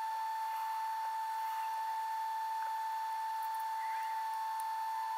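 A steady high-pitched tone, held at one pitch over faint hiss, with a faint short chirp about four seconds in.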